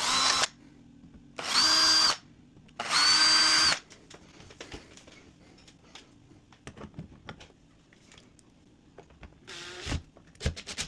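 Power drill running in three short bursts of about a second each, boring small pilot holes for screws into wood; each burst's whine climbs briefly as the motor spins up. Faint light clicks follow, with one more short buzz near the end.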